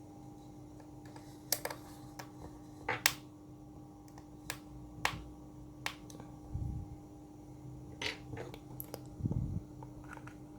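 Small screwdriver and tiny screws clicking and tapping against the aluminium bottom case of a MacBook Pro as the case screws are taken out: about a dozen sharp, irregular clicks, with two duller knocks in the second half. A faint steady hum runs underneath.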